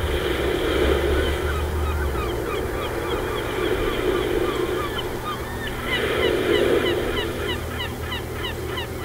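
A flock of birds calling: many short, downward-sliding calls over a busy lower chatter that swells and fades, and the calls grow denser about six seconds in.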